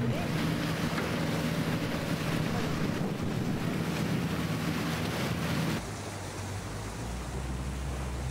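Outboard motor of an inflatable Zodiac boat running steadily under way, with wind buffeting the microphone and water rushing past. About six seconds in the sound drops abruptly to a quieter, deeper engine hum.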